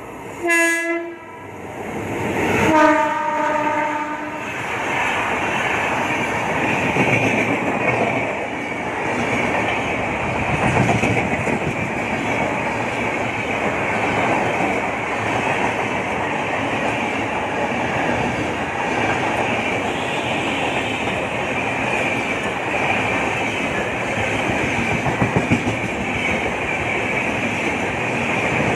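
Locomotive horn blowing twice, a short blast then a longer one, as an Indian Railways express approaches. The train then runs past at speed with a steady loud rumble and the clatter of wheels over rail joints.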